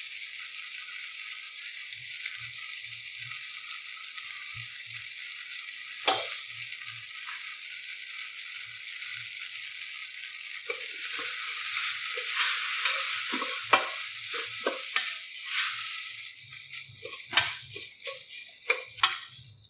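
Food sizzling as it fries in hot oil in a pan, with a single sharp clink about six seconds in. From about halfway through a spoon stirs and scrapes against the pan, and the sizzle thins near the end among a few sharp knocks of the spoon.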